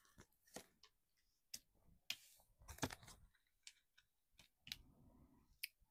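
Near silence with a few faint, scattered clicks and soft rustles.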